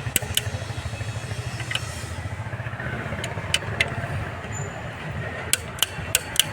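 Sharp metal clinks of hand tools on an engine under repair, about ten at uneven intervals in small clusters, over a steady low rumble.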